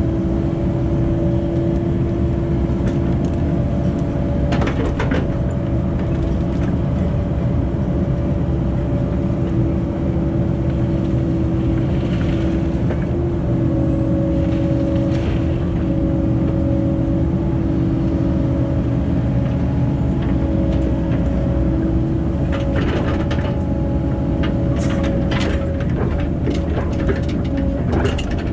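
Cat 308 mini excavator's diesel engine running steadily under work, with scattered metal clanks and knocks, most of them near the end.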